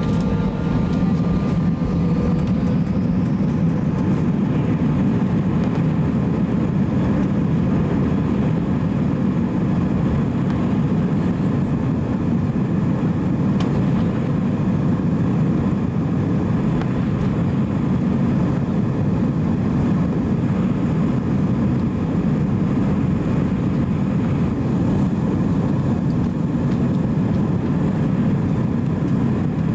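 Airbus A320 jet engines heard from the cabin, spooling up to takeoff thrust with a rising whine in the first few seconds. They then hold a steady loud roar with a deep rumble as the airliner accelerates along the runway on its takeoff roll.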